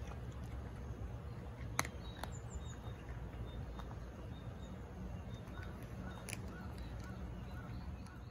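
Quiet outdoor garden ambience: a steady low rumble with faint, distant bird calls repeating, most of them in a run near the end, and two sharp clicks, the louder one about two seconds in.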